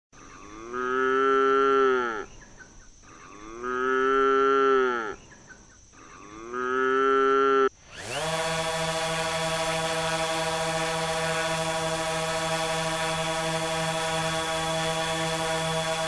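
A calf mooing three times, each call about a second and a half long and falling away at its end. About halfway through, a steady, unchanging mechanical buzz with a fixed pitch and a hiss under it takes over and holds.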